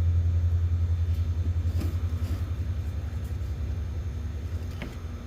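Low, pulsing rumble like a vehicle engine, fading steadily, with a couple of faint clicks.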